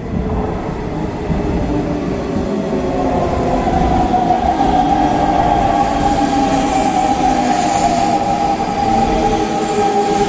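Hanshin Railway electric train running, with a whine that rises in pitch over the first few seconds and then holds steady as the sound grows louder.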